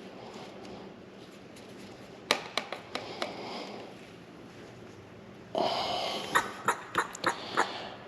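Vacuum brake bleeder pump working on a motorcycle's front brake line: a run of sharp clicks a little over two seconds in, then from about five and a half seconds a hiss of air with repeated clicks as it draws brake fluid through.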